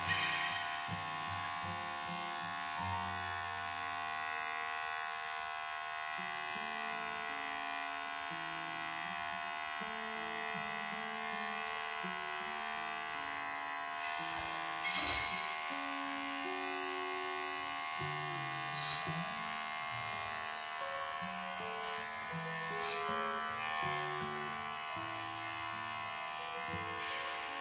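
Electric pet clipper buzzing steadily as it is worked through a kitten's glue-matted, sticky fur, with a few brief clicks along the way. Background music with changing notes plays underneath.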